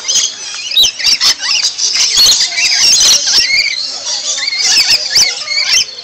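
Rainbow lorikeets screeching during a fight: a dense, unbroken stream of shrill squawks and chatter, with short sharp clicks among the calls.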